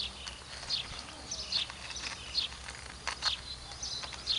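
Birds chirping: a run of short, high chirps that fall in pitch, one every half second to a second, over a faint steady low hum.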